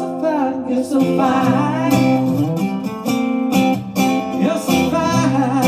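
Acoustic guitar strummed in a steady rhythm, with a man's voice singing a wavering melody over it.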